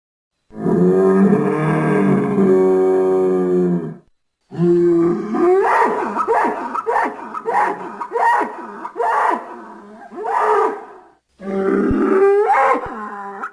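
Fictional Kritosaurus (hadrosaur) dinosaur calls: a long, steady, low-pitched honking call, then a string of short calls with quick upward flicks in pitch, and a last long call near the end.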